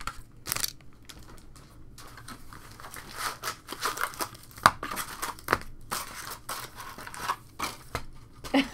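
Foil wrappers of trading-card packs crinkling and tearing as the packs are handled and opened, with a few sharp ticks along the way.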